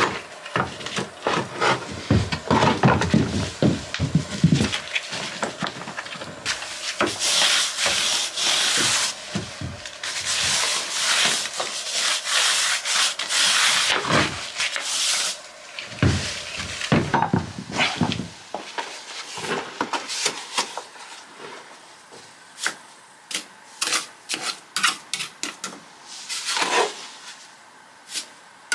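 Gloved hand rubbing and brushing across OSB floor boards, a rough scraping hiss in long strokes. Near the end it gives way to a run of short light taps and clicks.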